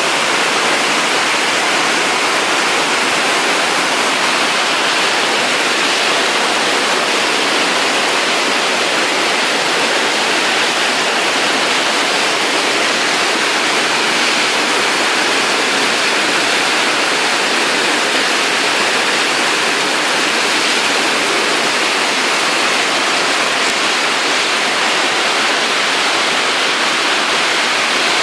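Very heavy rain pouring down in a steady, unbroken hiss.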